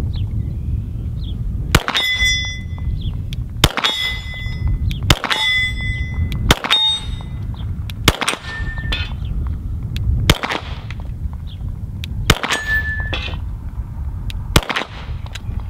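Eight Glock pistol shots at an unhurried pace, one every two seconds or so. Six are followed by the ringing clang of a steel target plate being hit, and two of those ring at a slightly lower pitch, a different plate.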